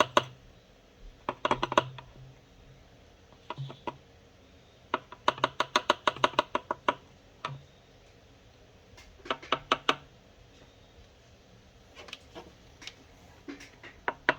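Quart bottle of Lucas Pure Synthetic oil stabilizer glugging as it drains upside down into the engine's oil filler: bursts of quick glugs every second or two, with quiet gaps between.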